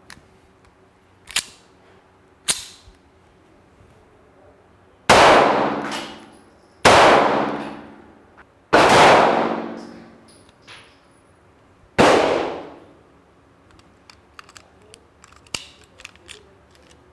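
Bond Arms Bullpup 9 pistol firing 9mm: four loud shots, the first three about two seconds apart and the last after a longer gap, each ringing out in a long echo, after two fainter sharp reports. Near the end come light metallic clicks as the pistol is worked by hand: a lockup with 115 grain SIG V-Crown ammunition, which is not on the maker's approved list.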